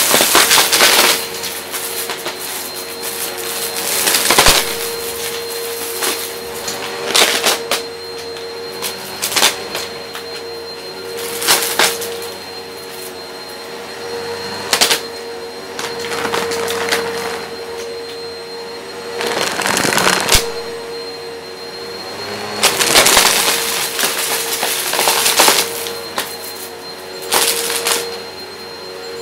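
Upright vacuum cleaner running with a steady motor hum while its brushroll sucks up small pieces of cut cardboard from carpet. Loud surges of crunching and rattling come every two to four seconds as the head is pushed over the pile.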